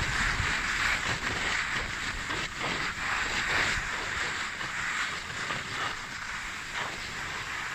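Skis sliding and scraping steadily over packed snow during a downhill run, with wind rumbling on the microphone.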